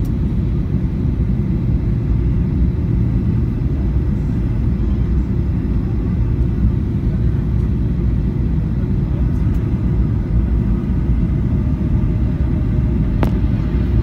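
Steady low rumble of a jet airliner heard inside the cabin: engine and airflow drone. A single sharp click comes near the end.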